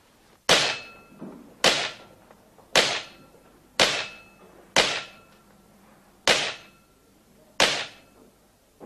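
Pistol shots on an indoor shooting range: seven single shots in a steady series, roughly a second apart, each with a short echoing tail.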